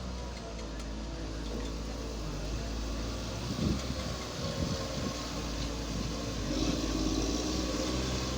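Engine of a construction machine running steadily, with a few knocks about halfway through, and louder for the last couple of seconds.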